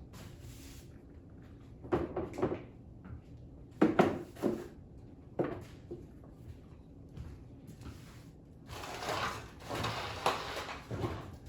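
Household clatter: several sharp knocks and clunks like drawers or cupboard doors being handled, then about two seconds of rustling, scraping noise near the end.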